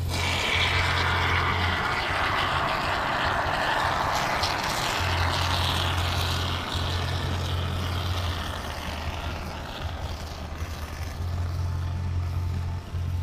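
Soudal expanding gap-filling foam being sprayed from its aerosol can through the straw nozzle: a steady hiss that weakens in the second half. Background music with a deep bass line underneath.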